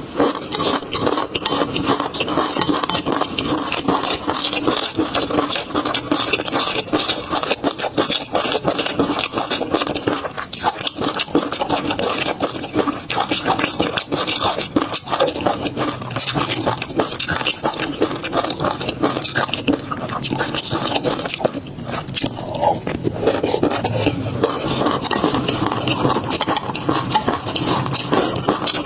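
Close-miked mouth sounds of eating peanut sauce: a dense, unbroken run of small smacks and clicks.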